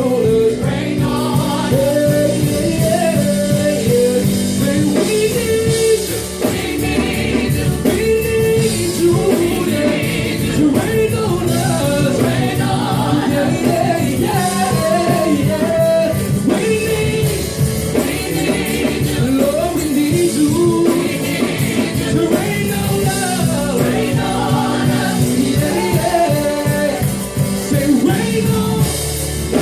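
Gospel song with a choir and lead vocal singing over a steady band of bass, keys and drums.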